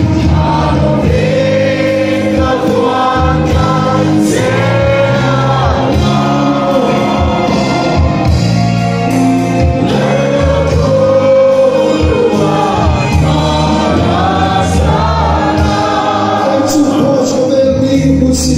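Congregation singing a worship song together with an amplified worship band, many voices over a steady drum beat.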